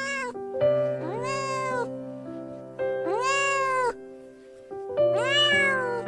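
Domestic cat meowing four times, each meow rising and then falling in pitch, the first short and the later ones longer, over background piano music.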